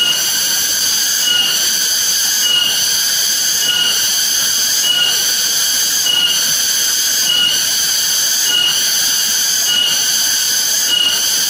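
Steady high-pitched electronic whine from the camera's own circuitry, with a short blip about every second and a quarter: interference caused by the camera's low battery.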